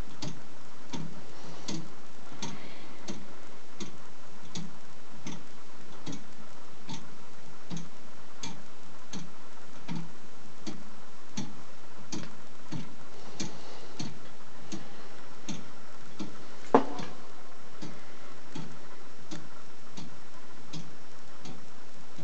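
A clock built entirely from Meccano parts ticking steadily, about three ticks every two seconds. One sharper, louder click comes about 17 seconds in.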